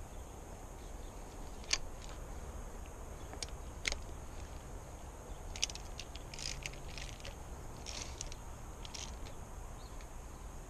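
Spark plug wire boots being pushed onto the spark plugs of a Yamaha VMAX HPDI 150 two-stroke V6 outboard, giving a few sharp snapping clicks spaced a second or two apart, with fainter high ticks in the later part.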